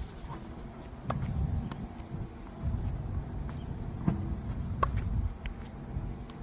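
Tennis volley practice: a handful of sharp pops as the ball meets the racket strings and the hard court, with shoe scuffs between them.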